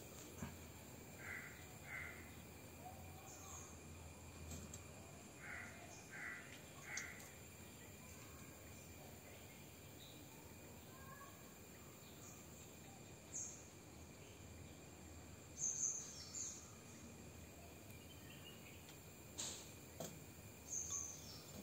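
Faint bird calls: two short calls about a second in, then three more around six to seven seconds, followed by scattered thin, high chirps.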